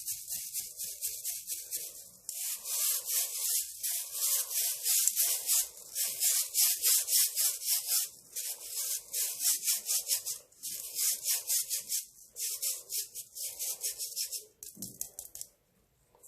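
Dried baking soda slabs crushed and crumbled close to the microphone: rapid, crisp crunching in runs of a few seconds with short pauses between them. The crunching stops about a second before the end.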